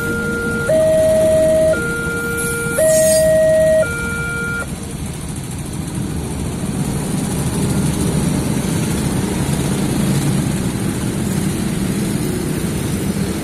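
Railway level-crossing warning alarm sounding an electronic two-tone pattern, a lower and a higher tone swapping about once a second, over the rumble of a passing train. The alarm cuts off about four and a half seconds in. A steady low noise of many waiting motorcycle engines then grows louder toward the end.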